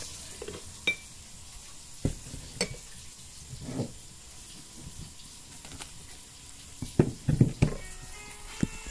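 Food sizzling steadily in a frying pan, with scattered sharp knocks and clatters of utensils and handling, the loudest cluster about seven seconds in.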